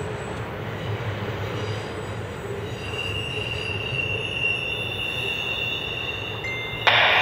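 Intermodal freight train's cars rolling away on the rails: a steady low rumble with high, steady wheel squeal coming in about halfway. Just before the end a scanner radio cuts in loudly with the start of a trackside defect detector's broadcast.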